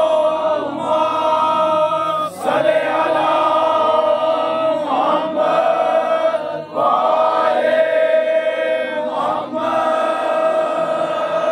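A group of voices chanting a noha, a Shia mourning lament, in unison: long held notes in phrases, with short breaks about every two to three seconds.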